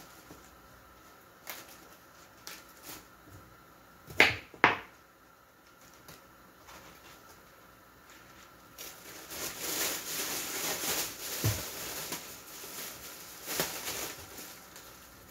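Thin plastic bag rustling and crinkling as lettuce is handled in it, from about nine seconds in. Earlier, two loud sharp snaps about four seconds in.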